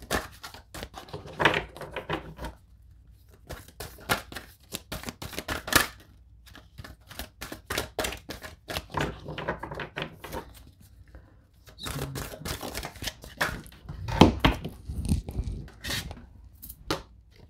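An oversized oracle card deck shuffled by hand: an uneven run of flicking, slapping card stock in quick clusters with short pauses. A few louder thumps come about three quarters of the way through.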